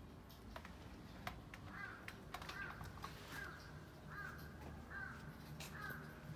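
Faint crow cawing: a run of about six short caws, evenly spaced less than a second apart, starting about two seconds in, over a low steady hum and a few small clicks.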